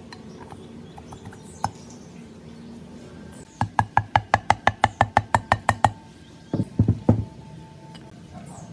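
Metal parts of a small air-compressor pump, the piston and cast cylinder, being handled: a quick run of about sixteen evenly spaced clicks, about seven a second, starting a few seconds in, then a few knocks. Soft background music plays throughout.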